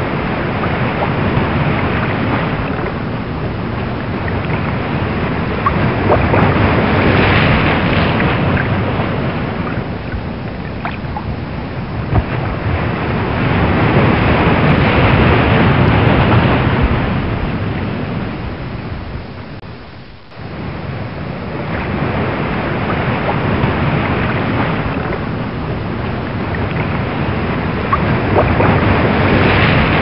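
Ocean waves on a rough sea: a continuous rushing wash that swells and eases every several seconds, with a brief drop about twenty seconds in.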